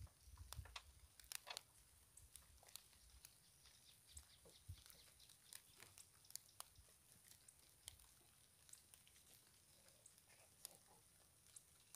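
Near silence: faint outdoor ambience with scattered soft clicks and rustles, and a faint low rumble of wind on the microphone in the first second or so.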